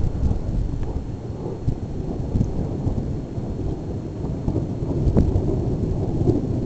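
Thunder rolling on in a long, low rumble, swelling again about five seconds in.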